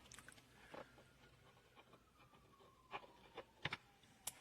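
Near silence with a few faint clicks and knocks as the 12-volt plug of a EUHOMY compressor car fridge is pushed into its socket, and a faint tone slowly falling in pitch. No compressor running: the fridge fails to start.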